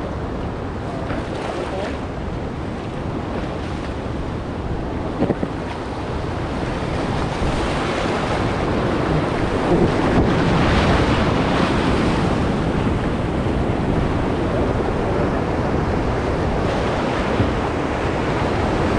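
Rushing whitewater of a Class IV river rapid, heard from a raft running it, with wind buffeting the microphone. The water grows louder about halfway through as the raft enters the rapid, and a single knock comes about five seconds in.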